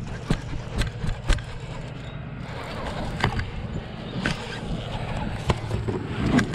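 Irregular knocks and rubbing from a gloved arm and fishing gear being handled against a chest-mounted camera in a kayak, over a steady low rumble.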